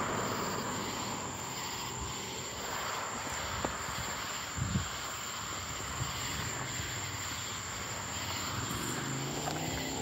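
Night insect chorus: a constant high, thin drone from crickets, over a low steady rumble of distant engine noise, with two or three brief knocks near the middle.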